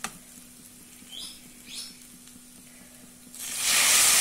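Lemon juice poured into a hot kadhai of fried potatoes, bursting into a loud sizzle about three seconds in. Before that it is fairly quiet, with a click at the start and two faint short chirps.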